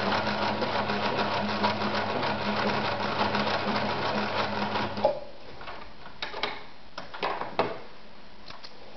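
Victoria Super Deluxe 118F electric sewing machine running at speed, sewing a straight stitch through shoe leather: a steady motor hum with rapid needle strokes. It stops suddenly about five seconds in, and only a few light clicks and rustles follow.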